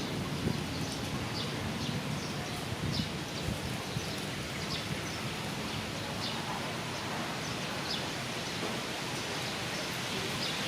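Steady wind noise rustling through trees, with low rumble from gusts and faint short high ticks scattered throughout.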